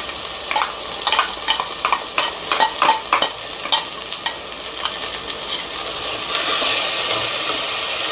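A steel spoon clicks and scrapes against a steel mixer jar as tomato purée is scraped out into a hot pan of fried onions, over a steady frying sizzle. About six seconds in, the sizzle grows louder and stays loud as the purée is stirred into the onions.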